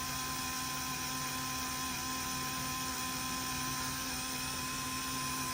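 Small electric drill with a 9/64 bit running at a steady pitch, drilling out the rivet that holds a die-cast toy car's base on.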